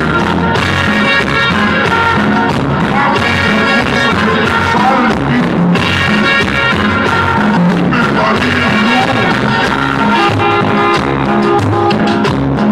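Loud dance music with singing, played over a DJ sound system (a Mexican 'sonido') for a dancing crowd.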